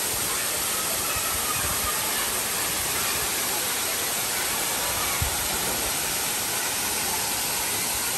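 Waterfall rushing steadily into its pool: an even, unbroken hiss of falling water. A brief low thump sounds about five seconds in.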